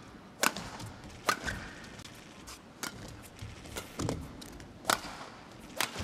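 Badminton rally: rackets striking the shuttlecock, six sharp hits roughly a second apart, with fainter taps between.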